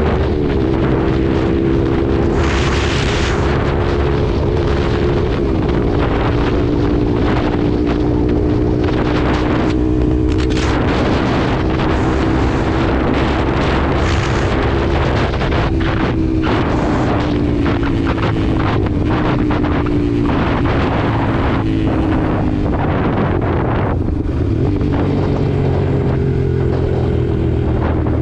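Lexmoto LXR 125's single-cylinder 125 cc four-stroke engine running at a steady cruise, its pitch drifting only slightly, with gusty wind rush over the microphone.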